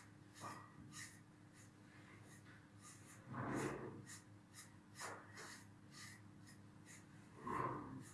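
Brush strokes through a long-haired dog's coat, faint short scratchy strokes about two a second, with two louder noises about three and a half and seven and a half seconds in.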